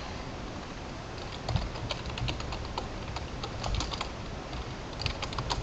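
Typing on a computer keyboard: irregular runs of key clicks, with a couple of soft low thumps.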